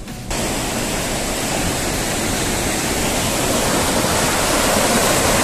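Water rushing through a dam, a loud, steady hiss of flowing water that starts suddenly just after the beginning.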